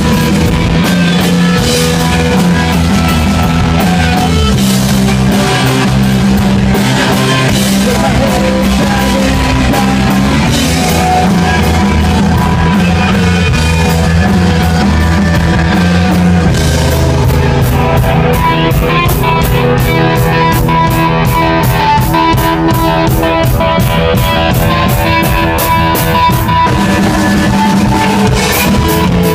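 Rock band playing live: electric guitar, bass and drum kit at full volume. About two-thirds of the way through, the drums move to a fast, even beat on the cymbals.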